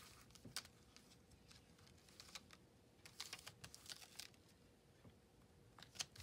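Faint, scattered light clicks and soft plastic rustles as a clear silicone stamp sheet and its cellophane packaging are handled.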